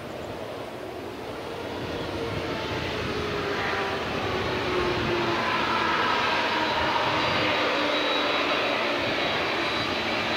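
Boeing 787 jet engines running at taxi power as the airliner turns around on the runway. The sound grows louder over the first several seconds as the aircraft swings to face the listener, then holds steady, with a faint whine that slowly slides in pitch.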